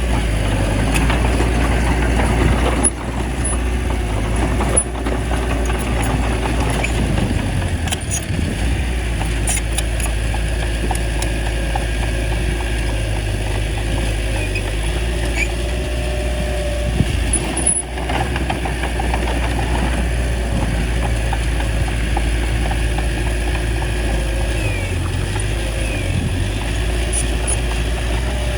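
Small bulldozer's diesel engine running steadily while the machine works, with a few short knocks over it.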